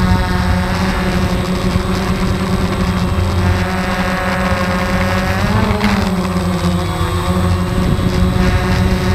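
DJI Phantom quadcopter's motors and propellers buzzing steadily, heard close up from the camera on board, over a low rumble. The pitch bends up and back down about five and a half seconds in as the motors change speed.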